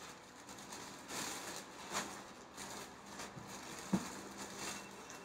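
Faint handling noises: soft rustles and a few light knocks, the sharpest a single tap about four seconds in.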